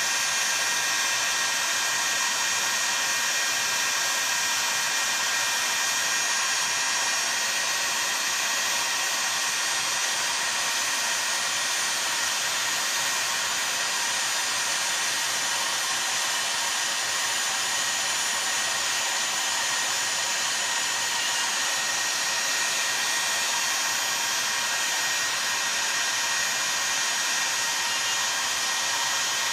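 Electric heat gun running steadily, a continuous rush of blown air with a steady high motor whine, heating a chainsaw crankcase half so the crankshaft bearing and oil seal can be fitted.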